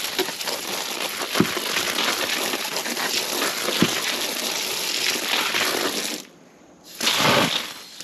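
Water spraying from a hose onto sand and wet cardboard bedding in a metal-lined worm bin, a steady hiss that stops about six seconds in, with a brief second burst near the end.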